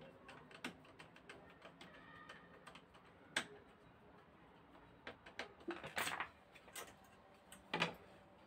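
Light metallic clicks and taps of a screwdriver working a bolt on the steel strap clamp that holds an angle grinder, with a few louder knocks of tool handling.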